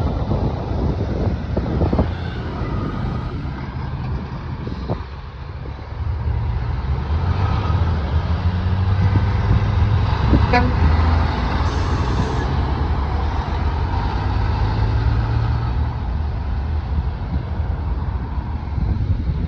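Heavy semi-trailer trucks' diesel engines running as they pull through the intersection close by. The low engine drone swells from about six seconds in and stays loud until near the end, with wind buffeting the microphone.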